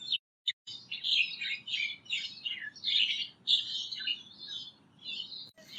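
Birds chirping: a rapid, busy run of short high chirps that starts about half a second in and keeps going to the end.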